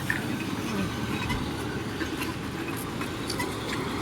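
Steady road traffic rumble with a few faint clicks and small high chirps over it.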